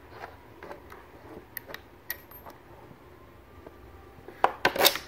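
Light clicks and taps of metal bolts and washers being set through the holes of a wooden side shelf and upright. A quick run of louder clicks comes near the end.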